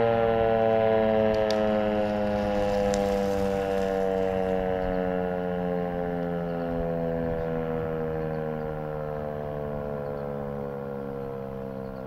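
Dual-rotor Fedelcode Type Mach 5 tornado siren winding down at the end of its steady alert tone, its pitch slowly falling and fading.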